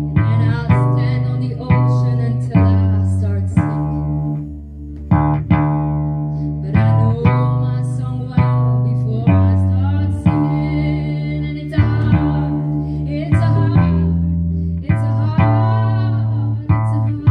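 Octave ukulele tuned like a bass guitar (EADG with the low string dropped to D) playing a bass line in D: single low notes plucked about once a second, each left to ring until the next.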